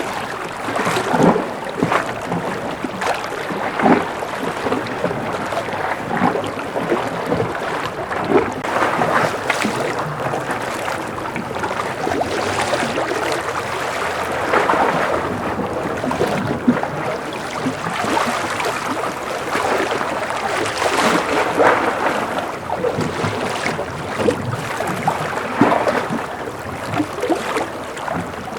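Gentle ocean waves lapping and splashing, a steady wash broken by frequent small irregular splashes.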